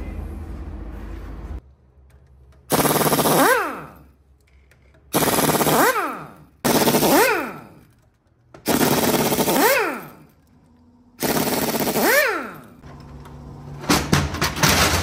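Power tool, most like an impact wrench, run in five bursts of about a second and a half each: a loud rapid hammering whose motor pitch rises and then winds down as the trigger is let go. A low rumble stops about a second and a half in, and there are some clattering knocks near the end.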